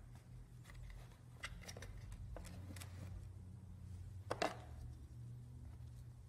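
Faint handling sounds of a convertible child car seat's harness being rethreaded through the slots of its plastic shell to a new shoulder height: light rustles of nylon webbing and small clicks of plastic, the loudest about four and a half seconds in, over a steady low hum.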